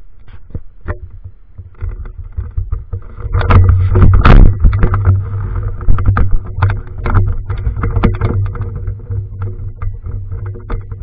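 Handling noise from a helmet-mounted camera rig as the helmet is put on and adjusted: repeated knocks, clicks and rubbing on the camera, over a low rumble. It is busiest and loudest a few seconds in.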